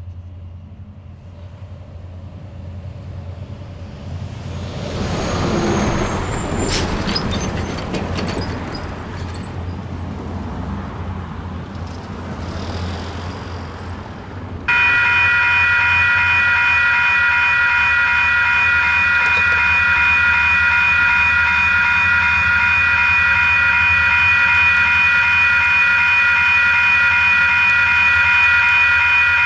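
Cars passing over a road crossing, loudest a few seconds in. About halfway through, the crossing's WCH electronic bell ("Type 2", scratchy) starts suddenly and rings on steadily at a constant level, signalling that the crossing has activated for an approaching train.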